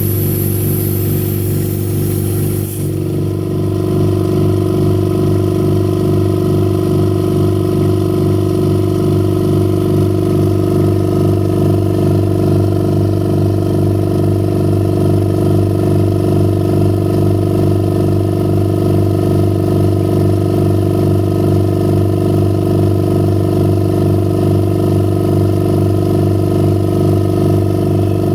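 Home-made record-cleaning machine switched on and running: a loud, steady motor hum with a high hiss on top that stops about three seconds in.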